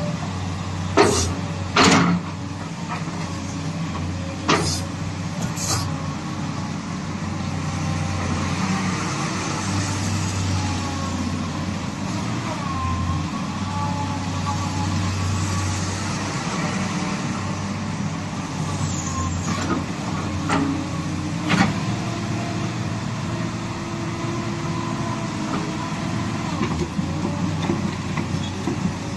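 Sany SY215C excavator's diesel engine running steadily under work, with several sharp metallic clanks, the loudest in the first few seconds and one about two-thirds of the way through.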